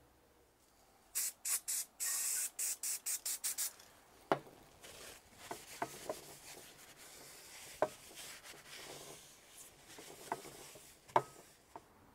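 Aerosol brake cleaner sprayed in a quick run of about a dozen short hissing bursts, one of them longer, onto the engine's oil separator. Then the part is wiped down with a cloth: a quieter rubbing with a few sharp knocks.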